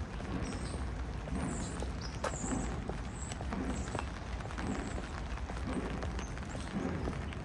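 Footsteps on a wet sidewalk, a soft step about once a second, over a steady low rumble.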